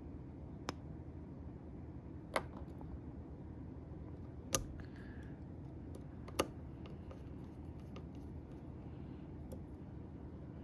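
Small clicks and taps from handling a folding knife and its screws during reassembly: four sharper clicks a second or two apart, with fainter ticks between, over a steady low hum.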